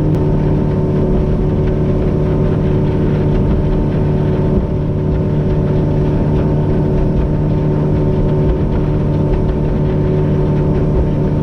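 Boat motor running at a steady cruising speed: an even engine hum with a constant rushing noise underneath.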